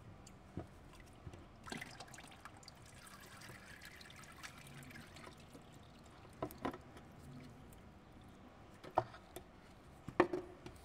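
Automatic transmission fluid trickling and dripping from the edge of a loosened oil pan on a Hyundai/Kia six-speed automatic transmission. A few sharp clicks and knocks of the tool and pan being handled; the loudest two come near the end, as the pan is lowered away.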